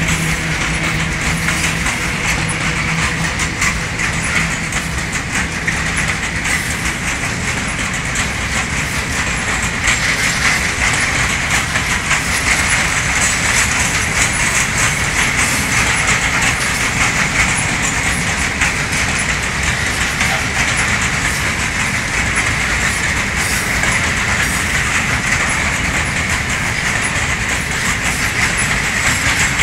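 A train running along the rails, its wheels clacking over the rail joints under a steady rushing noise; a low hum drops away about six seconds in.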